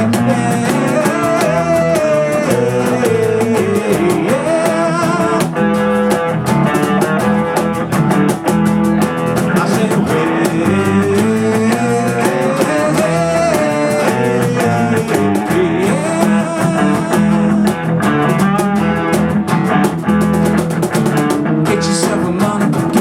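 A rock band playing live through an instrumental break between sung verses: guitar and drum kit, with a lead melody line that bends and wavers in pitch over the rhythm.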